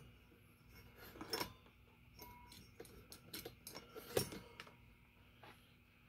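Light clicks and clinks of a power plug and wiring being handled while the ceiling fan is unplugged, with two louder clicks about a second and a half in and about four seconds in.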